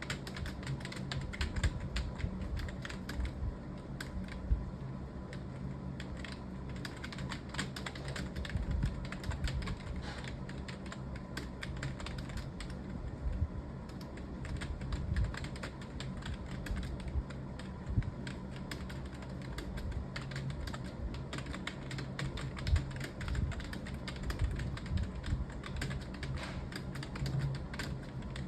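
Rapid, continuous typing on a computer keyboard: a fast, uneven stream of key clicks with no pauses.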